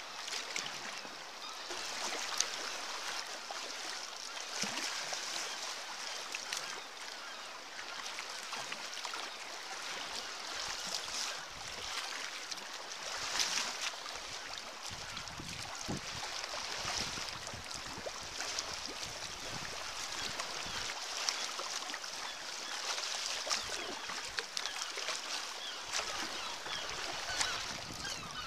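Sea kayak moving through choppy sea: water rushing and splashing along the hull, with paddle strokes swelling up every couple of seconds.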